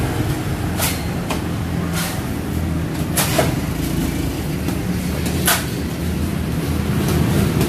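A construction power tool running steadily, with several sharp knocks scattered through it.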